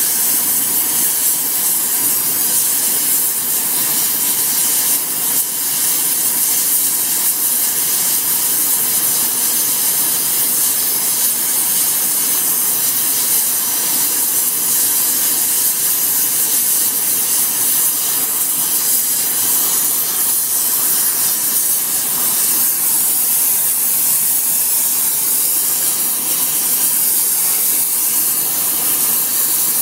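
Gas brazing torch flame hissing steadily as it heats the edge of a steel cane-shredder hammer and melts TufCote brazing cord onto it.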